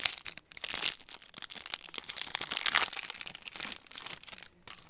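Foil wrapper of a trading-card booster pack crinkling and tearing in a run of irregular crackles as the pack is torn open and the cards pulled out.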